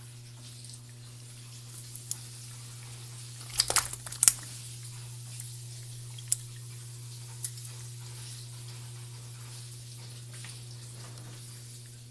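A hand moving caught cachama about in a container, making scattered sharp clicks and rustles, with a short louder cluster about four seconds in. A steady low hum runs underneath.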